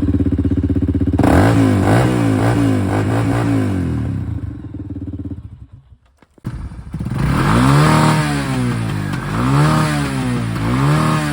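Honda quad (ATV) engine being revved in repeated short blips, each rising and falling in pitch. About halfway through the sound drops out for roughly a second, then the engine is revved in blips again.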